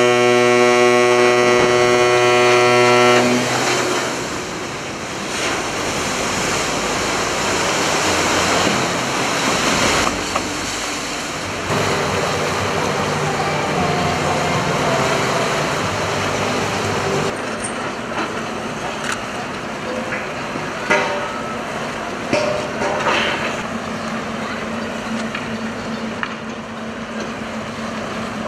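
A ship's horn sounds one long, steady blast that cuts off about three seconds in. After it comes an even rushing noise with a few short, scattered sounds.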